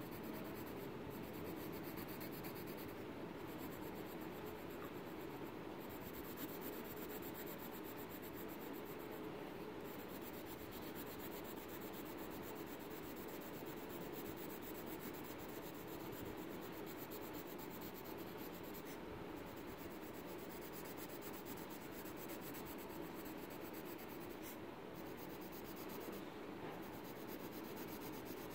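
Graphite pencil scratching and rubbing on paper, shading in a drawing with steady strokes.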